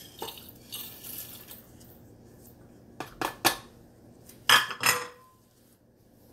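Whole dry spices tipped from a plate into the steel cup of an electric spice grinder, followed by a few sharp clinks and knocks of plates and bowls handled on the counter, the loudest pair about halfway through.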